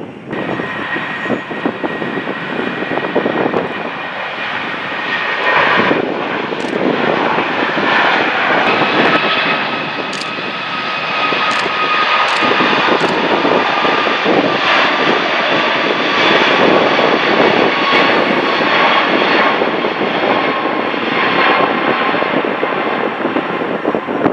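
Jet engines of a four-engine Airbus A340-600 airliner at thrust, a loud steady engine noise with several high whining tones, growing louder about six seconds in and holding there.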